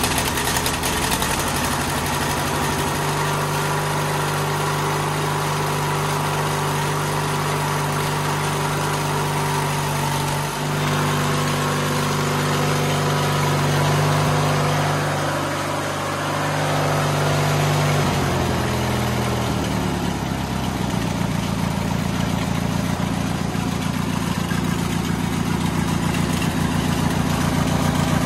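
Briggs & Stratton engine of a White LT1650 riding mower running steadily just after starting, on a freshly refitted carburettor with a different intake. Its pitch shifts about two-thirds of the way through as the engine speed changes while the top RPM is being set.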